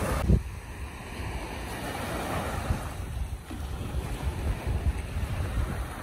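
Small waves breaking and washing up on a sandy beach, with wind rumbling on the microphone and a brief loud thump just after the start.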